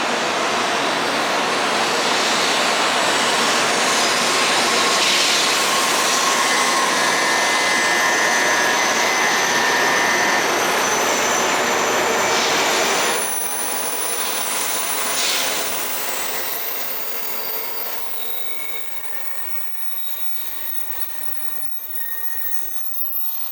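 N700-series Shinkansen train pulling out and passing at speed: a loud, steady rush of wheels and air with thin high whines. About 13 seconds in it drops off suddenly as the last car goes by, then fades away.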